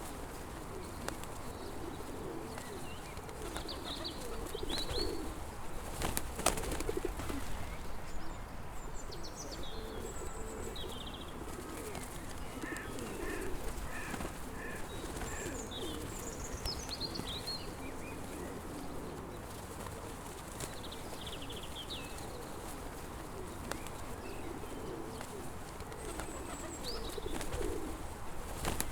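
Pigeons cooing over and over, with smaller birds chirping and twittering higher up. A single sharp click sounds about six seconds in.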